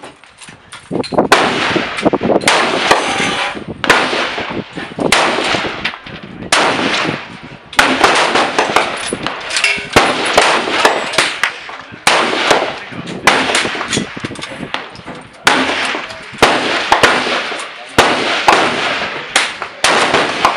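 Range gunfire: loud rifle shots come about once every second or so, each with an echoing tail that dies away over about a second, and fainter distant shots crack in between. The shots come too fast for one bolt-action rifle, so several guns on the firing line are going off.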